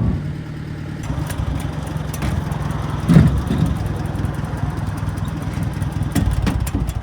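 Engine idling steadily, with a short knock about three seconds in.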